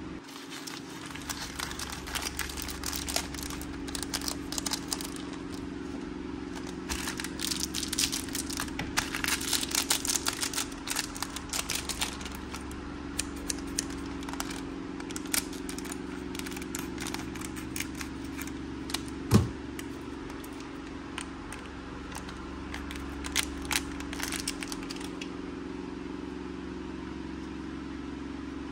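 Gloved hands crinkling and tearing open a foil-wrapped toy surprise, with many scattered crackles and small plastic clicks, densest in the first half and stopping a few seconds before the end. One sharp click stands out about two-thirds in, over a steady low hum.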